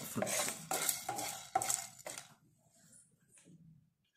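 Wooden spatula stirring whole spices (cardamom pods, peppercorns, cloves and cinnamon bark) dry-frying in a nonstick pan: a quick run of scrapes and rattles of the hard spices on the pan. It stops a little past halfway, leaving near silence.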